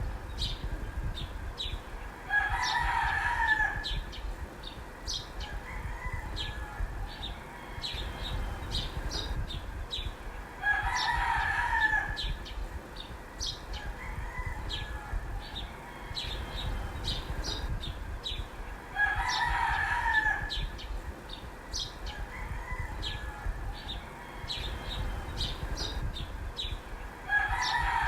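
A rooster crowing four times at even intervals, each crow about a second and a half long, with the last one starting near the end. Short high chirps sound between the crows.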